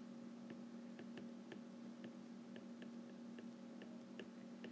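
Stylus tip tapping on a tablet's glass screen while handwriting, making faint irregular clicks about two or three a second over a steady low hum.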